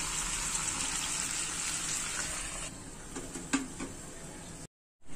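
Whole marinated chicken sizzling as it fries in oil in a pan. About two and a half seconds in the sizzle turns quieter, and a few light knocks follow as a glass lid goes on the pan. The sound briefly cuts out near the end.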